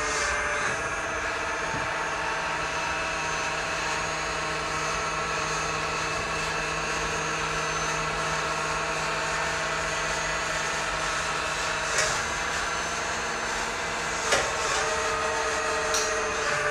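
Hydraulic pump and motor of a remote-control Cat 336D model excavator running with a steady whine. A few short knocks come through about twelve, fourteen and sixteen seconds in.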